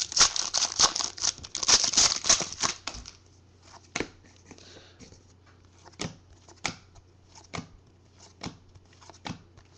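Trading-card pack being torn open and crinkled for about three seconds, then football cards flicked off the stack one at a time with sharp clicks every half second to a second.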